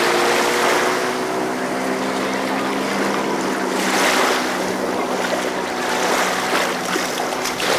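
Speedboat outboard engine running steadily as the boat tows a water-skier away, its drone slowly falling in pitch as it draws off. Wind on the microphone and small waves wash underneath.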